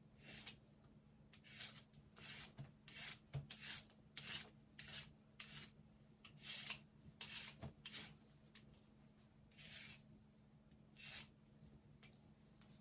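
Peeling strokes scraping the skin off a daikon radish: about fourteen short, irregular rasping strokes.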